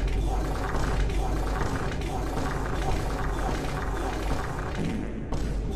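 Background music with a heavy, steady bass and a regular beat of about two pulses a second.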